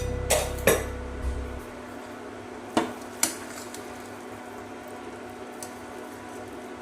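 Metal utensil clinking against cookware about four times, two close together near the start and two more about three seconds in, over a faint steady low hum; background music fades out in the first second or so.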